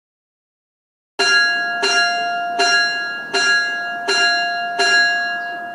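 Dead silence for about a second, then a bell struck six times, about three quarters of a second apart. Each stroke rings on under the next, and the ringing fades near the end.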